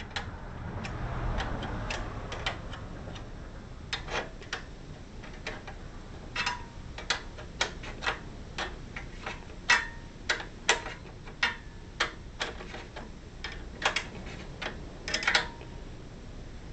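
Wrench working a lock nut onto a bolt through the awning support arm: irregular sharp metal clicks and clinks a half-second to a second apart, some ringing briefly, with a soft scraping in the first two seconds.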